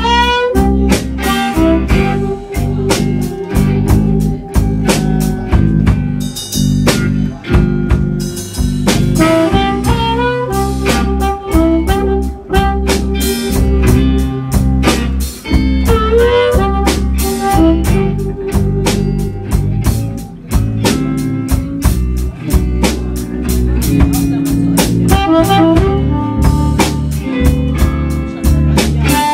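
Live blues band playing a slow blues: a harmonica cupped against a handheld microphone plays the lead, bending notes in several places, over drums and a steady bass line.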